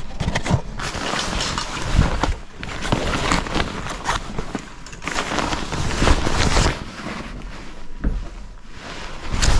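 Clothing rustling and being shuffled as a pile of T-shirts is rummaged through by hand, with irregular swishes and a few soft knocks from items being moved.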